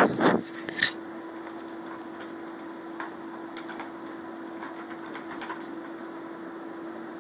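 Computer keyboard keys clicking as text is typed, light scattered taps over a steady low hum. A louder short rustle and a sharp click come right at the start.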